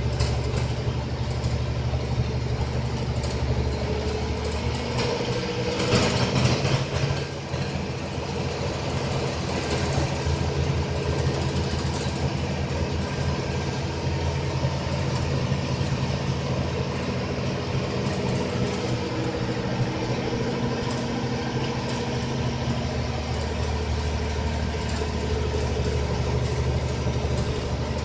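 APSRTC bus's diesel engine running steadily while under way, heard from inside the cabin along with road noise. The engine note shifts slightly about four to five seconds in, and a brief, louder hiss-like burst of noise comes about six seconds in.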